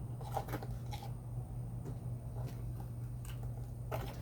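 Light scattered clicks and scrapes of generator parts and tools being handled, over a steady low hum.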